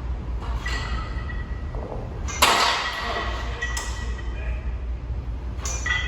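Metal gym weights clanking, the loudest strike about two and a half seconds in with a brief metallic ring, over a steady low hum.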